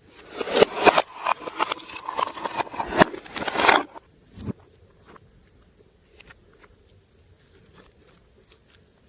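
Glossy slime being squished and kneaded by hand: a dense run of wet clicks and pops for about four seconds, then only scattered soft clicks.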